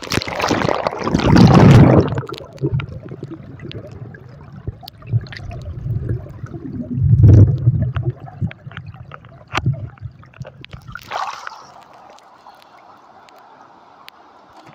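River water sloshing and gurgling around a phone held underwater in a waterproof case, heard muffled through the case. Loud swells of sloshing in the first two seconds and again around seven seconds in, a shorter one near eleven seconds, with a low steady water hiss between them.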